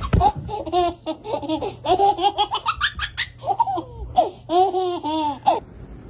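A baby laughing hard in repeated, high-pitched bursts, which stop shortly before the end.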